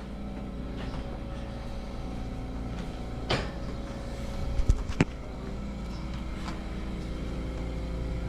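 Steady mechanical hum of a running central air-conditioning system, with a few sharp clicks and knocks from about three seconds in to five seconds in.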